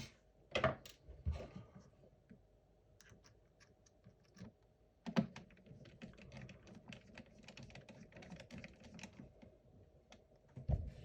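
Small, irregular clicks and taps of a screwdriver and hard-drive bracket parts being handled inside an open laptop case, with a few louder knocks: about one second in, at about five seconds and near the end.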